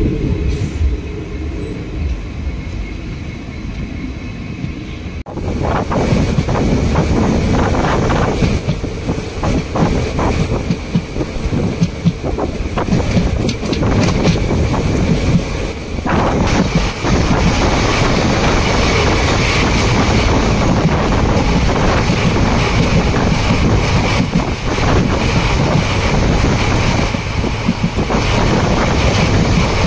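Passenger train running along the track, heard from an open coach door: a steady rumble and rattle of wheels on rails. It gets suddenly louder about five seconds in.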